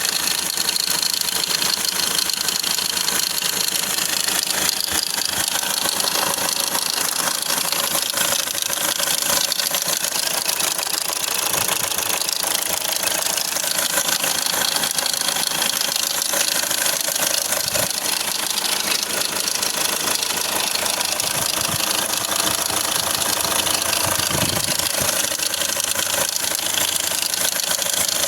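Hyundai Accent CRDi common-rail diesel engine idling steadily with a fast, even rattling knock, the noise the owner puts down to a loose timing chain, a common problem on this engine.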